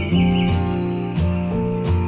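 Background music with a steady beat and bass notes.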